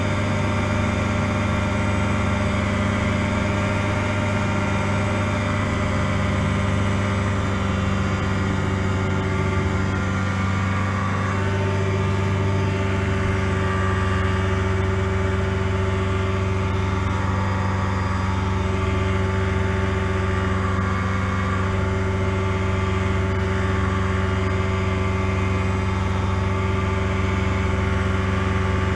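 Challenger ultralight's engine and propeller running steadily under power, a constant low drone with a noisy airflow haze above it, while the aircraft climbs away from the ground.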